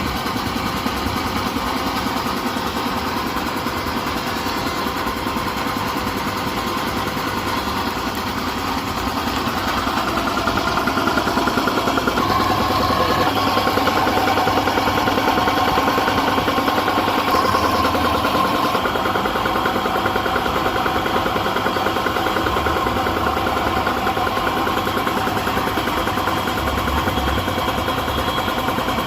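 Vintage air compressor running steadily, its pump beating rapidly and evenly. It grows louder about a third of the way in, with a steadier whine added, then eases slightly.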